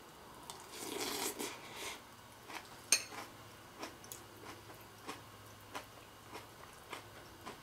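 A person chewing a mouthful of crunchy Fruity Pebbles rice cereal in milk. There is a louder crunch in the first couple of seconds, then faint, even crunches about two a second.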